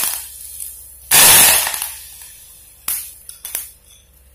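Fresh curry leaves dropped into hot coconut oil with mustard seeds and dried red chillies: a loud burst of spluttering and crackling about a second in, which fades within about a second. A few sharp pops follow near the end.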